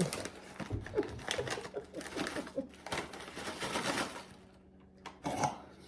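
A plastic snack bag of nacho crisps crinkling and rustling as it is opened and handled. The dense crackling runs for about four seconds and stops, followed by a brief rustle a little after five seconds.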